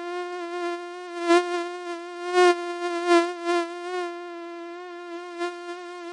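Mosquito whining in flight: a steady, high buzz that wavers slightly in pitch. It swells louder briefly about one, two and a half, and three seconds in.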